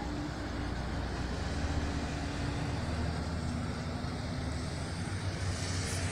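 Car engine running with a steady low rumble, amid street traffic noise.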